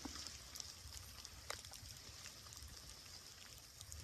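Light rain falling faintly, a soft hiss with scattered small drop ticks and a low rumble underneath.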